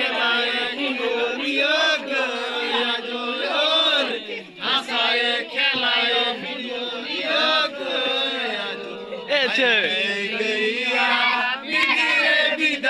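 A group of voices chanting a Sohrai festival song together in long, rising and falling phrases, with short breaks between them.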